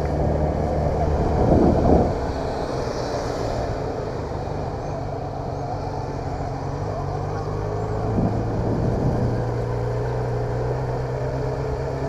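Yamaha XJ6 motorcycle's inline-four engine running at low revs as the bike rolls slowly, heard from on the bike. Its note drops a little about two seconds in and lifts slightly about eight seconds in.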